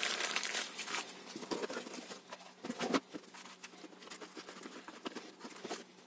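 Thin clear plastic bag crinkling and rustling as a battery charger is wrapped and handled in it. It is loudest in the first second, with another short burst just before three seconds and fainter rustles after.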